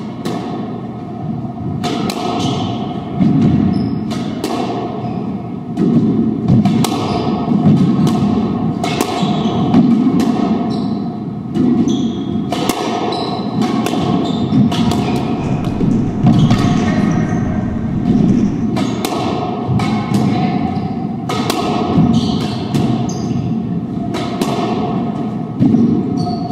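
Squash doubles rally: the ball struck by racquets and smacking off the court walls, sharp hollow impacts roughly once a second that echo around the court.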